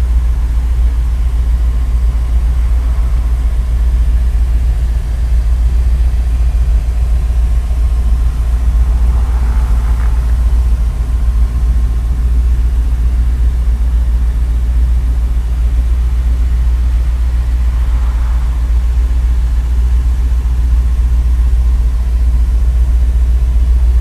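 An engine idling steadily, a continuous low rumble with no other distinct events.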